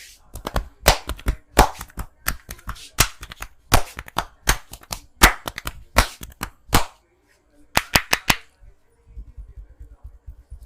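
Percussive massage strokes: the barber's cupped hands clapping sharply against the client's body. The claps come in a steady series a little faster than one a second, with a quick run of four about eight seconds in.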